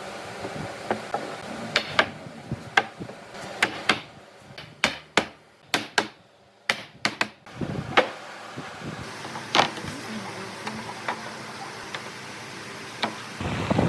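A series of irregular sharp knocks and taps, some with a short ring after them, with a quieter stretch in the middle. A louder steady noise comes in near the end.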